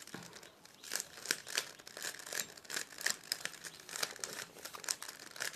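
Plastic Rubik's cube being twisted by hand: a quick, irregular series of clicks and scrapes as the layers turn.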